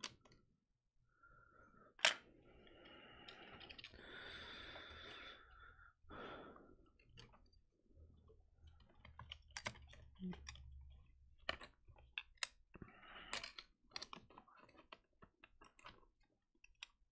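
Small clicks, taps and light rustling of parts being handled as a MacBook logic board is worked out of its case, with one sharper click about two seconds in and a run of quick small clicks in the second half.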